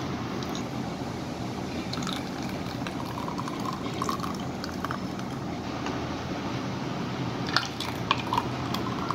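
Thick mango lassi being poured into a glass tumbler, a steady pouring of a heavy liquid, with a few clicks near the end.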